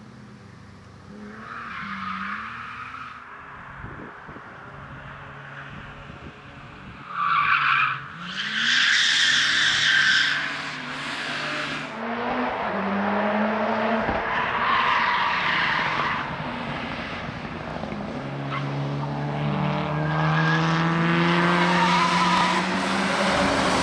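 BMW 328 (E36) straight-six engine revving up and down as the car drifts, with loud tyre squeal coming in bursts, loudest about eight to eleven seconds in.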